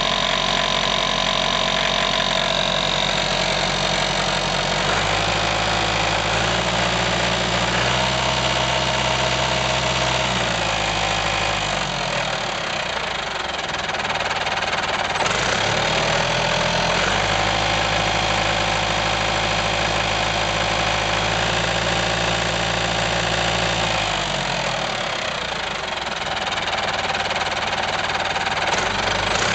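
International Harvester 554 tractor's diesel engine running, revved up from idle twice and let back down each time. Running with an abnormal noise from the crankshaft area that a workshop traced to the mass balancer, which has several teeth missing.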